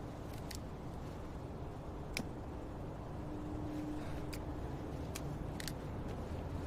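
Steady low ambient rumble with a handful of short, sharp clicks scattered through it.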